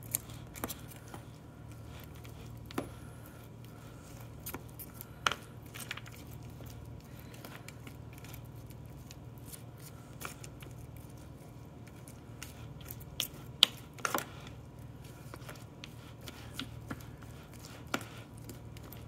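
A flat utensil stirring wet-mixed dog kibble in a bowl: scattered clicks and scrapes of the kibble and the utensil against the bowl, over a steady low hum.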